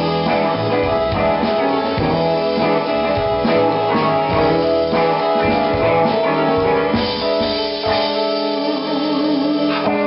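Live blues band playing without vocals: guitar over a drum kit keeping a steady beat.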